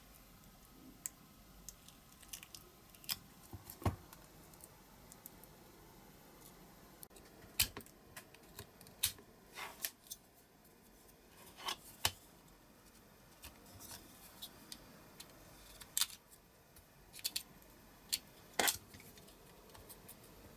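Snap-off craft knife trimming flash from a small cast resin part: faint, irregular sharp clicks and short scrapes of the blade on hard resin.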